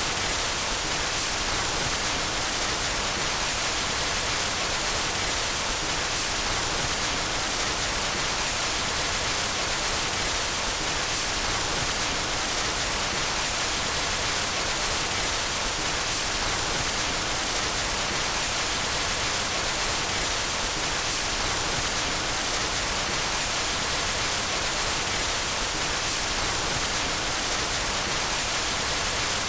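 Steady white noise: an even, unchanging hiss that is heaviest in the high pitches.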